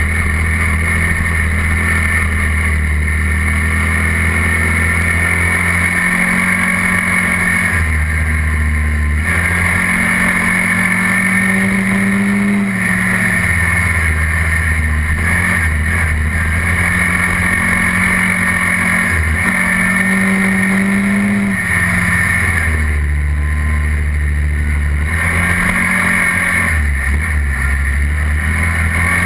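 ATV engine (a SYM Quadlander 300's single-cylinder four-stroke) running under way on a gravel road, its pitch rising and falling again and again with the throttle, over a steady rushing noise.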